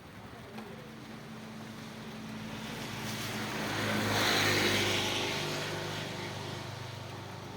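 A motor vehicle passing by on a wet road: its engine hum and tyre hiss swell to a peak a little past the middle and then fade away, over steady rain.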